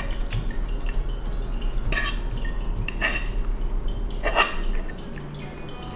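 A few light clinks of cutlery against a plate, about two, three and four and a half seconds in.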